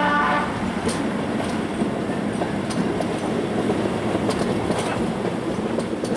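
British Rail 4-VEP slam-door electric multiple unit running along the line, heard at an open window, with an even rumble and irregular clicks of the wheels over the rail joints. A two-tone horn that was sounding stops about half a second in.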